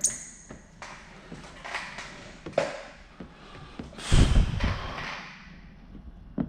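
Handling noises while paint protection film is worked onto a car bumper. A sharp click with a short high ring opens it, followed by brief, irregular scuffs and rustles of the squeegee and film, and a heavier rustle about four seconds in.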